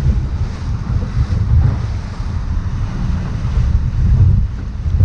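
Strong wind buffeting the microphone aboard a boat at sea, a loud gusty rumble with the wash of waves and water beneath it.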